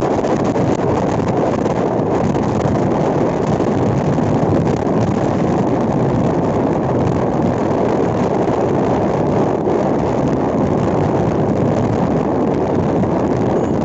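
Steady rush of wind on the microphone mixed with tyre and road noise from a car driving at speed on a concrete road.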